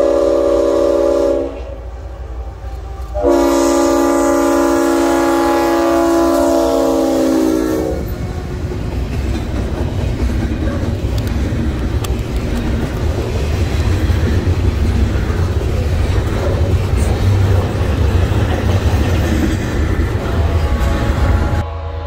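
Leslie RS5T five-chime air horn on a GE ES44AH locomotive sounding a short blast, then a long one of about four and a half seconds. Then the locomotive and double-stack intermodal cars roll past with a steady low rumble and wheel-on-rail noise, and the horn starts sounding again right at the end.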